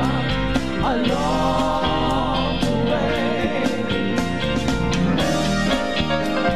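Gospel song: a female vocal group sings in harmony with runs and vibrato over a band of keyboards, bass, drums and guitar. The voices fall away near the end, leaving the band playing.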